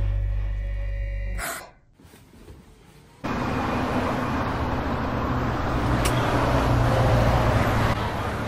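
A low, droning music chord stops about a second and a half in with a short noisy burst, followed by a moment of near silence. From about three seconds in, steady city street traffic noise takes over, with a single click near the middle.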